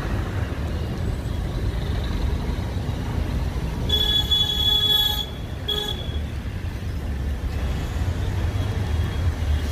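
Steady low background rumble of passing traffic. About four seconds in, a vehicle horn sounds for about a second, followed by a short second toot.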